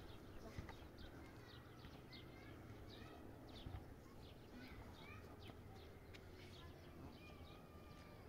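Faint birdsong: many short, quick chirps and a few thin whistles from small birds, over a low background rumble.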